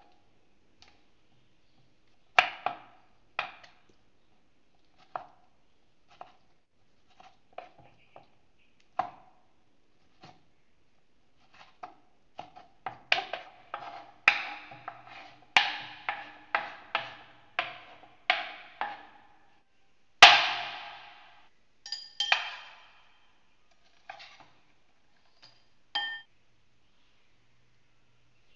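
Kitchen knife chopping tomato on a wooden cutting board: scattered knocks at first, then a quicker run of chops about two a second. One louder, longer stroke follows, then a few sparser knocks.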